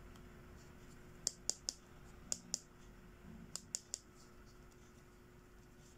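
Sharp clicks of small hard plastic doll accessories (a comb, hairbrush and hand mirror) being handled and tapped together: eight clicks in three quick groups of three, two and three.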